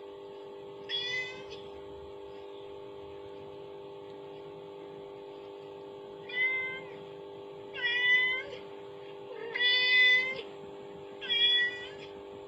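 A cat meows five times: one short meow, a long gap, then four meows in quick succession, the later ones louder. A steady low hum runs underneath.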